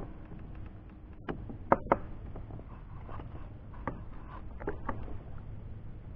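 Light knocks, clicks and small water splashes at the side of a plastic kayak as a channel catfish held in a lip-gripper is lowered into the water and released. The sharpest knocks come in a quick pair about two seconds in, with a few softer ones around four to five seconds.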